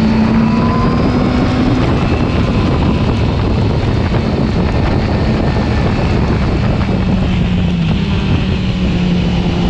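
Yamaha R6's inline-four engine running steadily as the motorcycle rides along, with wind noise on the microphone. The engine note settles slightly lower near the end.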